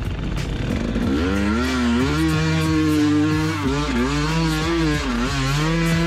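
Two-stroke enduro motorcycle engine revving hard. It climbs in pitch about a second in, holds high, and drops briefly twice before pulling up again.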